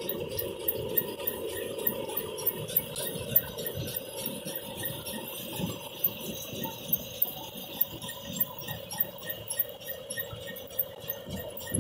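Machinery running with a steady hum and rapid, light metallic ticking and jingling throughout, with a few sharper ticks standing out.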